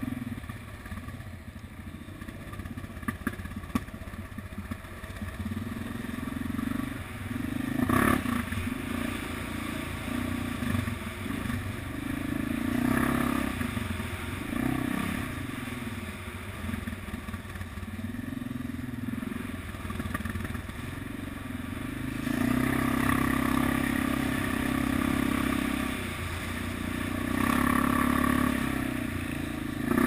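ATV engine running while riding a trail, the throttle swelling and easing off again and again, louder in the last third. A sharp knock comes about eight seconds in.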